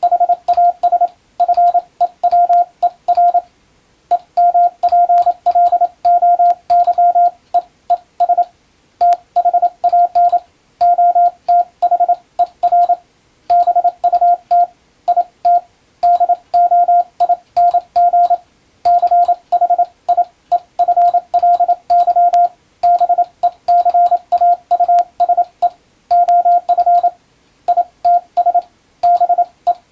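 Morse code (CW) sent as a single steady tone of about 700 Hz, keyed rapidly on and off in dots and dashes with short gaps between groups, each element starting and stopping with a sharp click.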